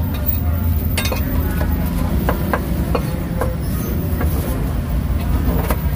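A steel cleaver chopping through meat and cucumber onto a wooden chopping block: several sharp, irregular knocks over a steady low rumble.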